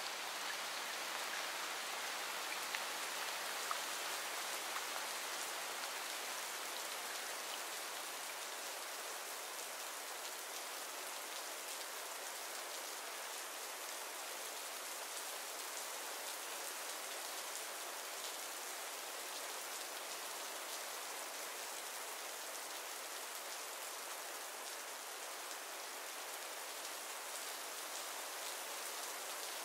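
Steady rain falling, an even continuous hiss, with a few light ticks in the first few seconds.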